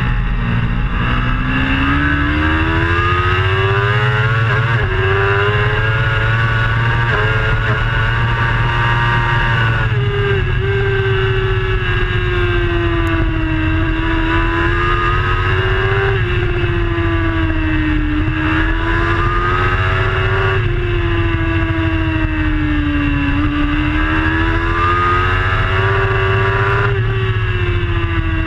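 Onboard sound of a racing superbike's engine held at high revs. Its pitch climbs with small steps in the first few seconds, falls sharply about ten seconds in, then rises and falls again through the following corners, under a heavy wind rumble on the camera's microphone.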